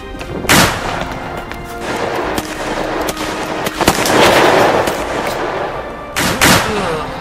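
Several gunshot sound effects over background music. A loud shot comes about half a second in, smaller cracks and a swell of rushing noise follow in the middle, and two quick shots come near the end.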